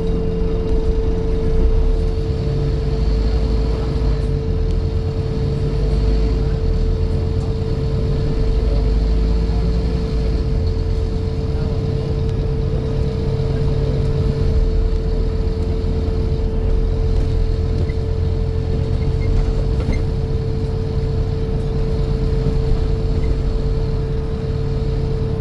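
Scania N230 bus running, its engine rumble rising and easing as it drives, with a steady one-pitch buzz held throughout that does not follow the engine.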